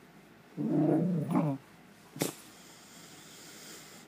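Small service dog vocalizing to wake its sleeping owner: a wavering, whine-like grumble lasting about a second, then a shorter rising one right after it, then a single sharp snort about two seconds in.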